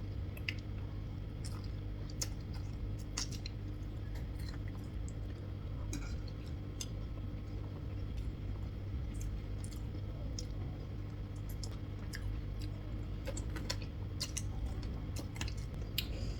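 Close-up eating sounds: a person chewing, with many short sharp clicks and smacks scattered through, over a steady low hum.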